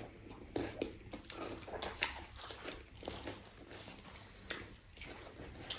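Close-up eating sounds: chewing and biting, with irregular crisp crunches and clicks.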